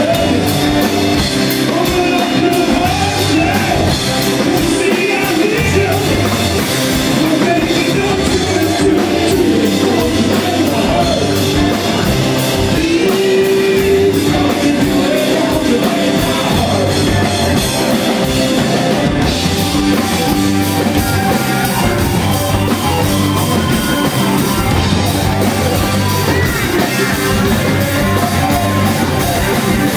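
Live rock band playing loudly and without a break, with amplified electric guitars and a drum kit.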